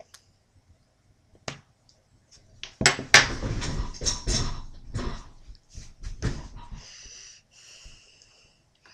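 A person coughing and spluttering, hand over mouth, after taking a dry spoonful of ground cinnamon in her mouth, the dust catching in her throat. Near-quiet at first, then a burst of harsh coughs from about three seconds in, easing into hoarse, breathy gasps near the end.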